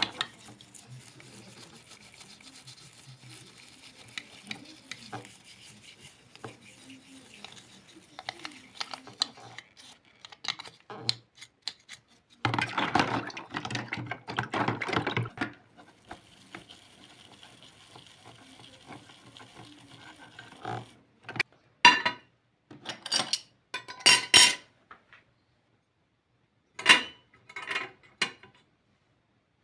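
Hand work on a small die-cast toy car, with small hard parts and tools being handled. About halfway through comes a few seconds of rapid, dense strokes. Toward the end come several separate sharp clicks.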